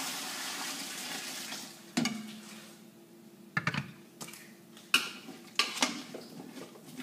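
Blended tomato salsa poured from a blender jar into a pot of boiling vegetables, a steady hiss that fades out about two seconds in. Then two knocks as the glass jar is set down, and from about five seconds in a spoon clinking against the metal stockpot as the broth is stirred.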